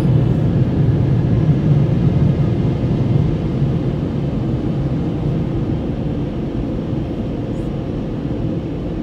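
Dryer blowers of a Mark VII ChoiceWash XT car wash running with a steady low rumble, growing gradually quieter from about three seconds in.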